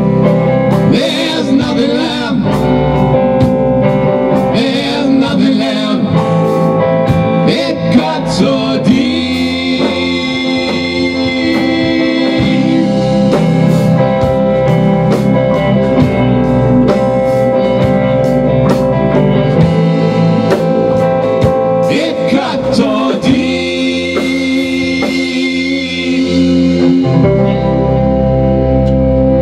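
A rock band playing live in a small rehearsal room: drum kit and electric guitars, with long held high notes twice.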